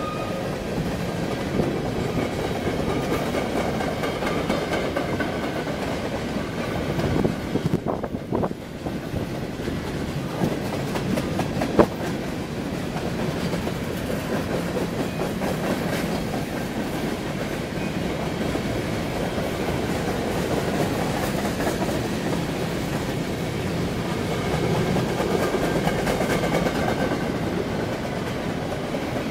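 Freight train of covered hopper cars rolling past: a steady rumble of steel wheels on the rails, with one sharp knock about twelve seconds in.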